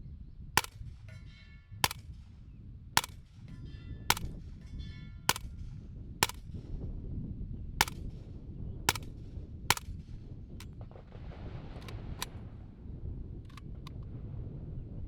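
Nine suppressed gunshots fired at a steady pace about a second apart, a few followed by a brief metallic ringing, then several fainter sharp pops near the end. A steady low wind rumble runs underneath.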